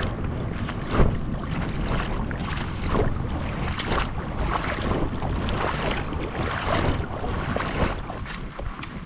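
Wading through a shallow creek: water splashing and sloshing around the legs with each stride, about one step a second, with wind rumbling on the microphone.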